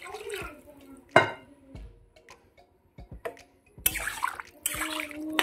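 Water going into a kadai of curry: drips and small splashes, a sharp clink about a second in, and a louder spell of splashing near the end.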